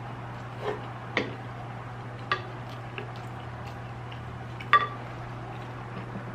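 Cutlery clinking and tapping against a dish while eating, about five sharp clicks spread over the stretch, the loudest a little before five seconds in, over a steady low hum.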